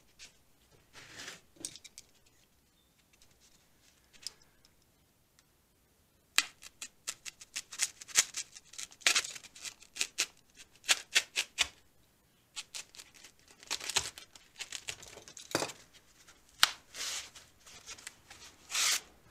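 Utility knife slicing lengthwise through a foam pool noodle, with a quick run of sharp, crackly strokes from about six seconds in and a short pause partway. The blade is one that its user reckons needs replacing.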